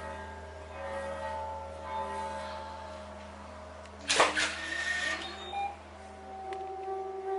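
Sustained tones from the vibrating dust-covered resonance plate setup, several tones ringing together. About four seconds in, a sudden hissing burst with a rising sweep cuts across. About six seconds in, a single new, lower steady tone takes over.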